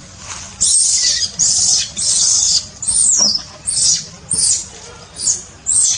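Macaque giving a run of shrill squeals, about eight in quick succession, some sliding down in pitch.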